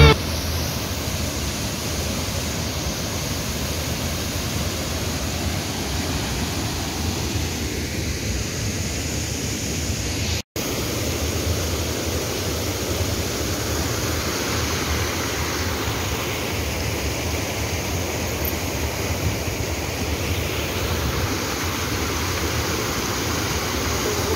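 Small waterfall rushing over a rock ledge into a pool, a steady sound of falling water that cuts out for a moment about ten seconds in.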